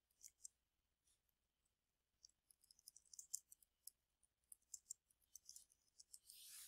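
Faint computer keyboard typing: a run of soft, irregular key clicks starting about two seconds in and thinning out near the end.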